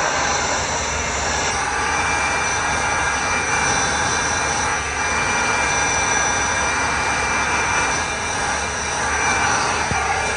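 Electric heat gun running steadily, its fan blowing a constant rushing whoosh with a faint whine, while it is held against lacquered wood to clear white blush from the finish.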